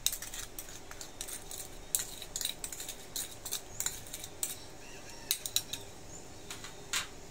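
A spoon clinking and scraping against a small ceramic bowl as seasoning is scooped out, a string of light, irregular clicks. Near the end, more clinks as the bowl is set down among other small ceramic bowls.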